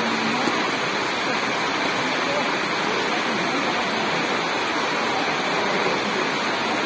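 Steady, even rushing hiss that does not change in level, with no distinct ball hits standing out.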